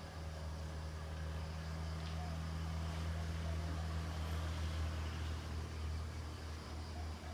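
Low, steady engine hum of a motor vehicle, easing off after about five seconds, with faint distant voices underneath.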